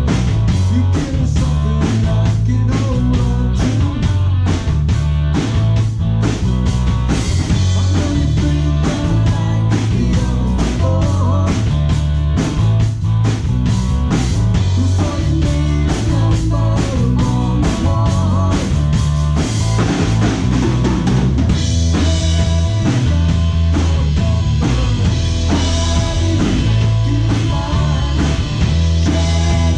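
Rock band playing live: a drum kit with a steady, driving beat and an electric bass line to the fore, with guitar and keyboards.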